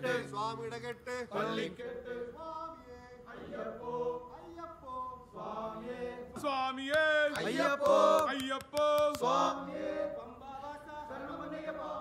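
A group of men chanting Ayyappa devotional chants together, the voices rising and falling in pitch.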